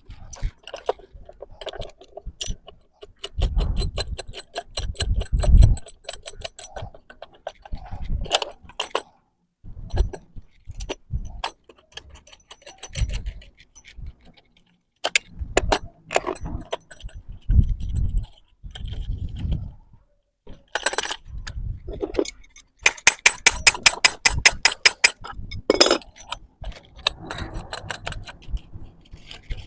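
Metal hardware clinking and rattling as bolts and nuts are fitted to bolt a butterfly valve between pipe flanges, with sharp clicks, low knocks and two longer runs of rapid ticking.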